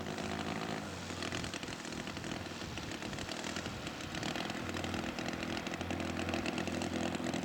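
Engine of a radio-controlled scale model aircraft running steadily, with small shifts in pitch and growing slightly louder toward the end.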